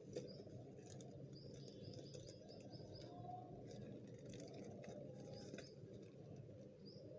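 Faint chirping of small birds, with a quick run of short high chirps about one and a half seconds in and a few more later, over the faint crinkle and rustle of a plastic courier mailer being handled.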